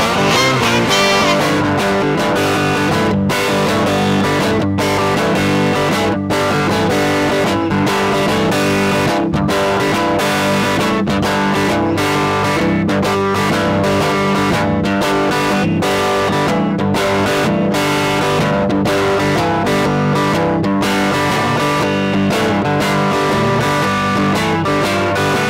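Blues instrumental played on electric guitar.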